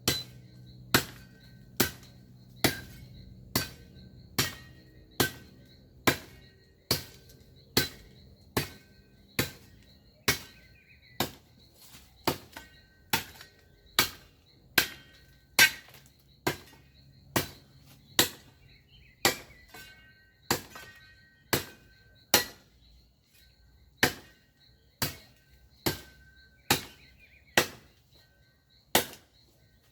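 A hand tool chopping in steady strokes, a sharp strike a little more than once a second, some thirty in all, as grass and branches are cut back by hand.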